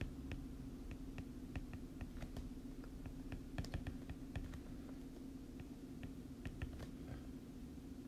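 Stylus tapping on a tablet screen while handwriting: irregular light clicks, several a second, over a steady low hum.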